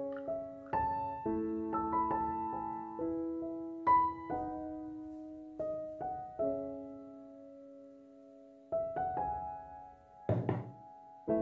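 Background piano music: single notes and chords struck one after another, each ringing and fading. Near the end a brief knock.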